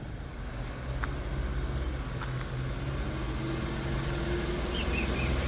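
A heavy vehicle's engine running steadily at low revs, a low hum with a few faint clicks. Near the end comes a short high chirping.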